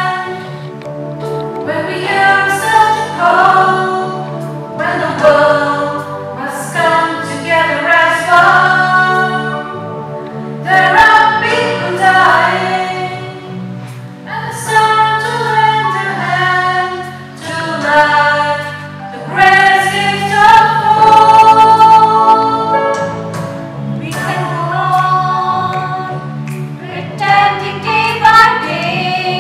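A choir of mostly women's voices singing together from song sheets, with steady held low notes sounding beneath the voices.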